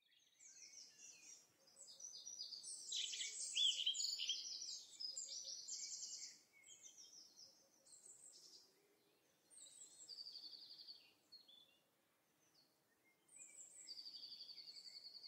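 Recorded songbirds singing as a sound effect: quick chirps and fast trills in overlapping phrases, busiest in the first six seconds, then in shorter bursts with gaps, ending on a rapid trill.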